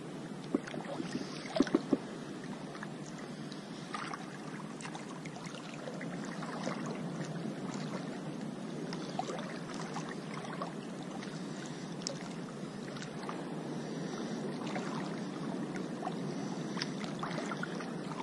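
Shallow lagoon water lapping and splashing close to the microphone, a steady wash with scattered small splashes and a few sharper clicks about one to two seconds in.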